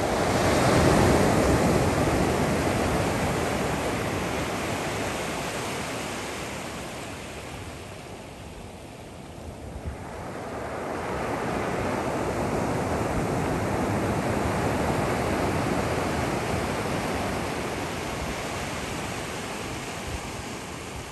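Ocean surf washing up a beach: a broad rushing swell that fades away by about eight seconds in, then a second one that builds about eleven seconds in and slowly dies away near the end.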